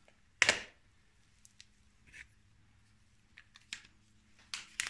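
One sharp clack about half a second in, then scattered faint clicks and taps: tools or parts being handled off-camera during work on a snowmobile track, with a faint low hum underneath.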